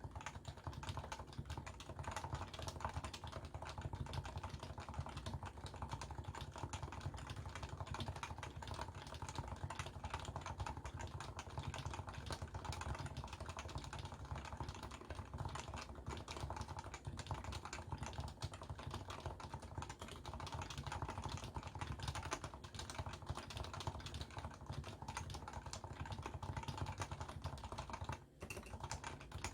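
Steady, continuous typing on a Leopold FC660C with stock, non-silenced 45g Topre electrocapacitive switches, a dense run of keystrokes with a brief pause near the end. Recorded on a Samsung Galaxy S10+ phone microphone.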